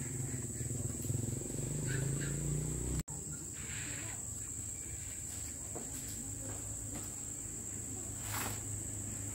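Insects chirring in a steady high-pitched drone, with a low murmur underneath. The sound cuts out for an instant about three seconds in.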